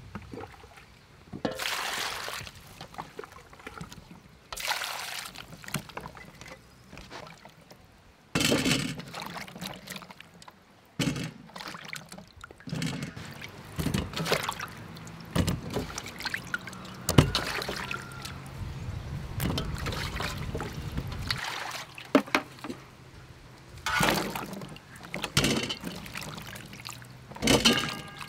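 Water sloshing and trickling in a metal bowl as radishes and vegetables are rubbed and rinsed by hand, in irregular splashy bursts.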